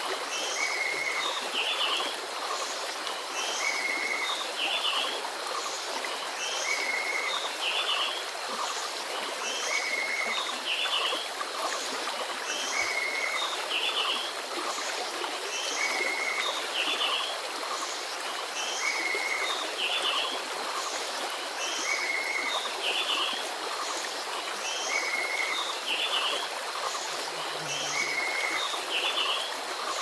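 Shallow stream rippling steadily over rocks, with a bird repeating the same short, high chirping phrase about every three seconds.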